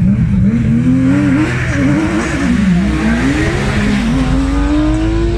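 Porsche 911 race car's engine revving at the start line, its pitch jumping up and down, then launching and accelerating hard, with the pitch climbing steadily through the last couple of seconds.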